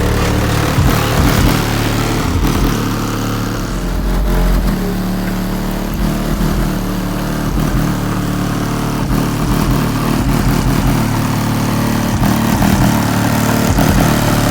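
Bass-heavy rap music played loud through a car's Skar Audio subwoofer system, with deep held bass notes running steadily.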